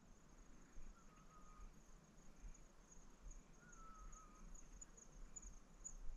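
Near silence in an open field: insects trill faintly and steadily at a high pitch. Two faint, thin wavering whistles come about a second in and again a little past the middle.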